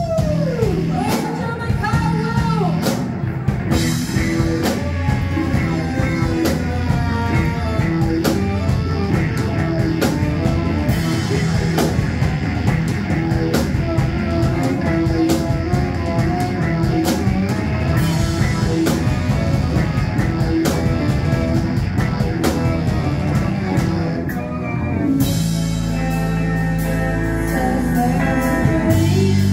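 Live rock band playing loudly: electric guitar, bass guitar, drum kit and saxophone. Near the end the drumming drops away, leaving held notes ringing.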